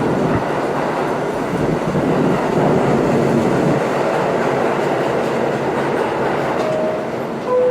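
Loud, steady rumble and rattle of a New York City subway train. Near the end the R68A car's door chime sounds: two tones, a higher one then a lower one.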